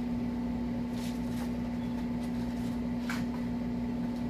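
A steady low electrical hum, with a couple of faint light clicks.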